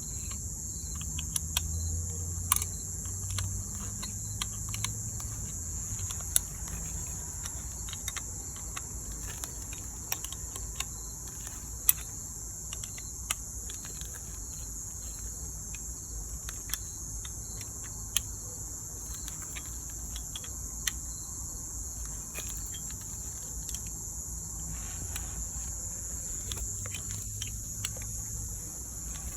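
Steady chorus of crickets, with scattered sharp metallic clicks of wrenches turning a stud out of an engine mount, two nuts jammed together on it.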